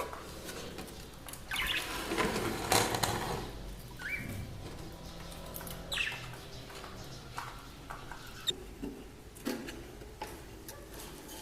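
Budgerigars fluttering and giving a few short chirps, among scattered rustles and light knocks.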